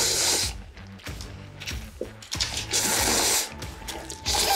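Buldak spicy stir-fried ramen noodles being slurped fast in long, hissing pulls, loudest at the start, about three seconds in and again at the end, over background music.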